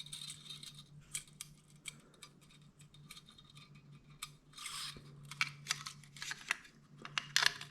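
Metal clicks, taps and scrapes of B&T P26 pistol parts being fitted together by hand, as the guide rod and two recoil springs are pushed into the upper receiver. One longer scrape comes about halfway through, and a quick run of sharp clicks comes near the end.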